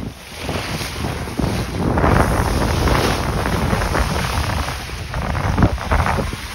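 Wind buffeting the microphone over the rush and splash of the sea along a sailboat's bow as it sails under way.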